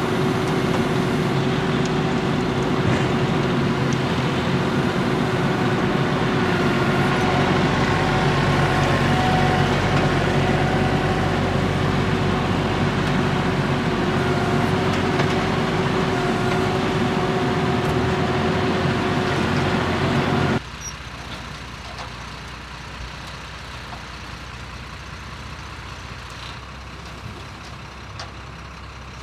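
A John Deere 5075E tractor's diesel engine runs steadily under load with a steady tone on top as its front loader dumps soil into a dump truck. About two-thirds of the way through the sound cuts abruptly to a quieter, steady truck engine as the dump truck tips its bed and dumps the soil.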